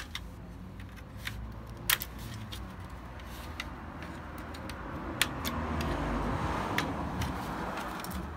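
Sharp plastic clicks and snaps as a screwdriver prises and snaps the retaining tabs of a BMW E34 kidney grille to release its chrome trim. A louder rustling scrape swells between about five and seven seconds.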